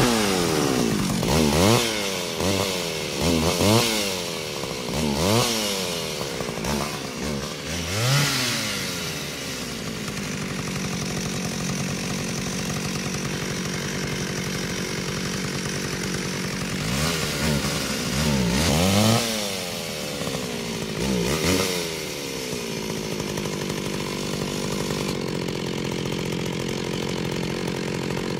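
Chainsaw engine revved over and over, its pitch dropping and climbing again roughly once a second, then running on steadily. Past the middle it is revved a few more times before it settles back into a steady run.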